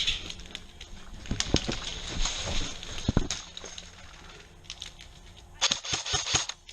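A player's footsteps scuffing and crunching on dry ground, with gear rustling. Near the end comes a quick cluster of sharp clicks.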